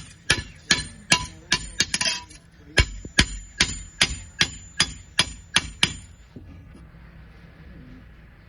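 Hammer striking iron in a steady series of ringing metallic blows, about two or three a second, stopping about six seconds in.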